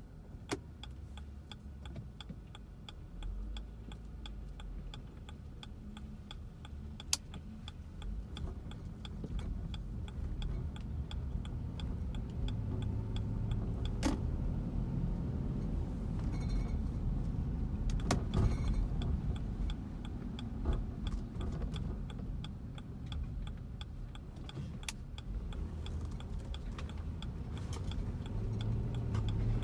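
Car cabin noise from engine and tyres on a wet road, growing louder about eight seconds in as the car picks up speed. A steady light ticking runs over it, with a few sharp clicks.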